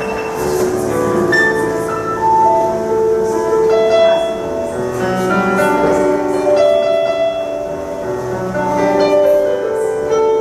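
Grand piano played solo in an improvised passage, with ringing notes that overlap and sustain.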